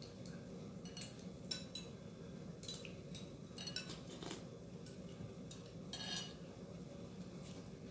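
Chopsticks and a ceramic soup spoon tapping and clinking against porcelain bowls, a few light clicks scattered over several seconds, over a faint steady low hum.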